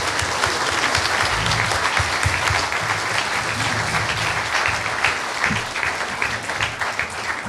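Audience applauding: a steady round of clapping at an even level.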